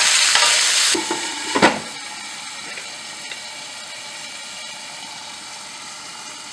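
Cauliflower and potatoes sizzling in oil in a frying pan as they are stirred. About a second in the sizzle drops and a glass lid clanks onto the pan, and the frying goes on as a softer steady hiss under the lid.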